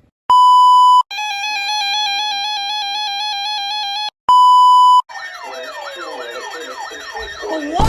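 Electronic alert tones from a broadcast emergency alert: a steady beep for under a second, about three seconds of a two-tone alarm, a second steady beep, then a siren-like tone sweeping up and down about three times a second.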